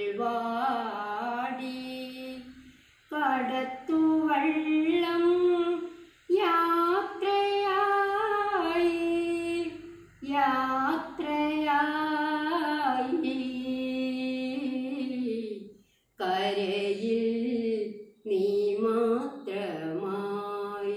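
A woman singing unaccompanied: long, drawn-out notes that glide up and down, in phrases of a few seconds separated by short pauses.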